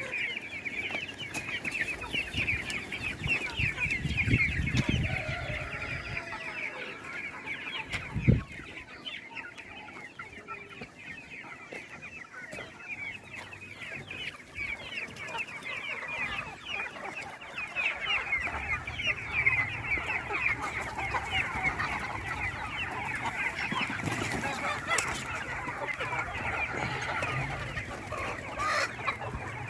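A flock of chickens calling together, many short high calls overlapping without a break. A single thump comes about eight seconds in.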